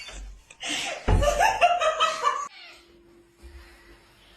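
A person laughing: a burst of short, choppy laughs lasting about two seconds, starting about half a second in.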